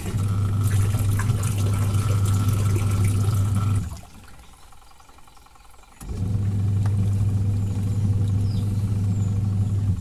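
Twin-tub washing machine's wash motor driving the pulsator: a steady electric-motor hum that runs for about four seconds, stops for about two, then starts again. This is the stop-start rhythm of the wash cycle agitating the load.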